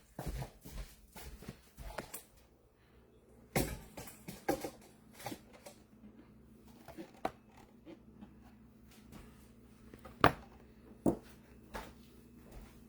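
Scattered knocks and clicks of things being handled, with a sharp knock about ten seconds in and another just after, over a faint steady hum.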